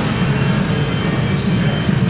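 Steady low background din around a claw machine, with faint machine music over it.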